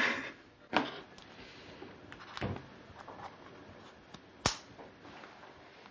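Quiet handling of a new smartphone by hand: a couple of soft rustles, then one sharp click about four and a half seconds in.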